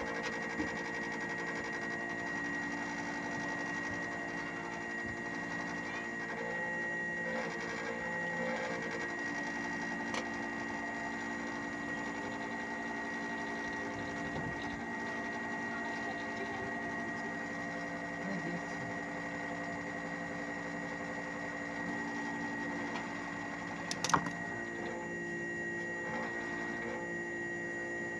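Hitachi 1-ton split AC outdoor unit running: a steady mechanical hum with a high whine over it, and one sharp knock near the end.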